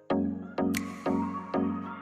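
Background music with a steady beat, a sharp note about every half second.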